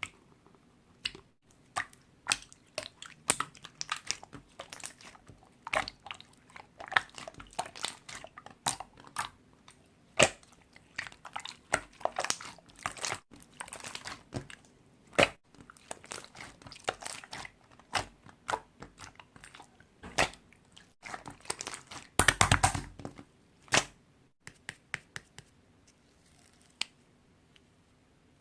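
Slime being handled by hand: an uneven run of short sticky clicks and pops, with a dense cluster of them about 22 seconds in, then thinning out near the end.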